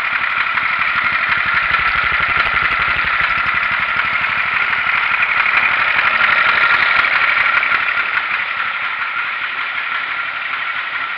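8 hp Briggs & Stratton single-cylinder engine in a Cub Cadet 76 garden tractor running steadily, newly swapped into the tractor and running again.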